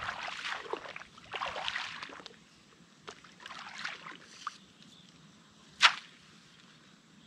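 Water sloshing as a person wades through a flooded rice paddy, with splashy strides for about the first two seconds and softer splashing a little later. About six seconds in comes one short, sharp slap, the loudest sound.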